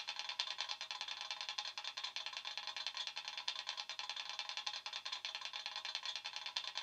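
A model locomotive's DCC sound decoder playing a Class 66 diesel engine idle through small speakers: a steady, fast, even chugging, thin and without bass.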